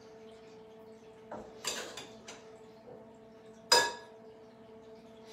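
Utensil clinking and scraping against a tall drinking glass as whipped cream topping is spooned onto a foamy drink: a few light clinks, then one sharp ringing clink about two thirds of the way through.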